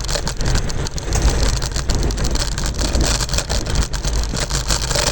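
Wind buffeting the microphone and the rumble of an electric scooter rolling over the road, a steady noise with many small knocks and rattles.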